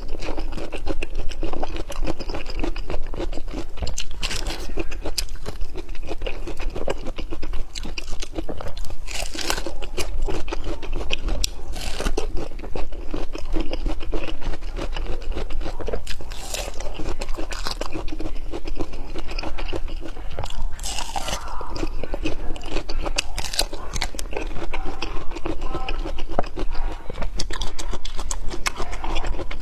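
Close-miked eating of fresh fruit, sped up: a steady run of crunchy bites and wet chewing.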